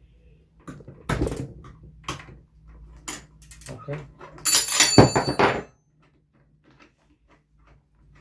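Metal tool knocks and clanks on a BMX bike's left pedal and crank as the reverse-threaded pedal is worked loose, with a louder ringing metallic clatter about halfway through, then faint light ticking.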